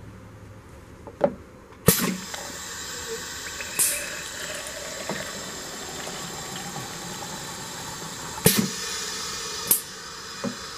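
Piston filler dispensing a 12 oz fill of water into a plastic measuring jug: a sharp clack about two seconds in, then the steady splash of liquid filling the jug, with a short hiss partway through. The fill ends with another sharp clack and a brief hiss near the end.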